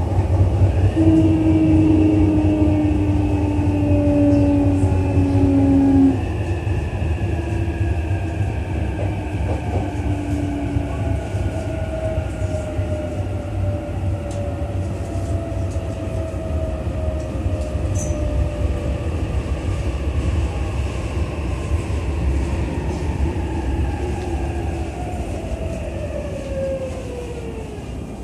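Cabin running sound of a JR East E233-3000 series electric train braking into a station: the motor and inverter whine slides steadily down in pitch as the train slows, over a constant rumble of wheels on rail. Near the end the whine drops away quickly and the sound fades as the train comes to a stop.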